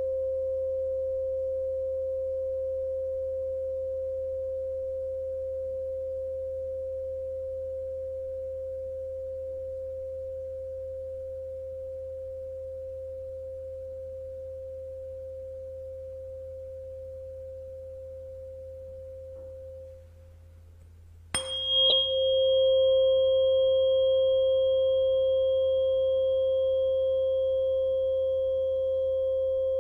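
528 Hz tuning fork ringing with a pure, steady tone that slowly fades. About 21 seconds in it dies away, then is struck again with a brief metallic ping and rings loud once more.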